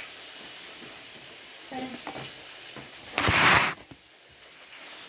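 Pork chops frying in hot oil in a skillet, a steady sizzle, with a few light clinks of a utensil against the pan about two seconds in. Just past three seconds a loud rushing noise lasts under a second, the loudest sound here, and the sizzle is quieter after it.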